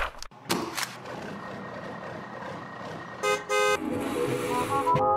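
Edited intro sound effects: a steady rushing noise, then two short horn toots in quick succession a little over three seconds in. A stepping melody of background music starts right after the toots.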